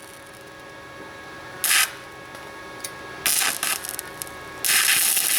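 Flux-core arc welding on a steel exhaust pipe: three bursts of arc crackle, a short one about a second and a half in, another past the three-second mark, and a longer weld near the end.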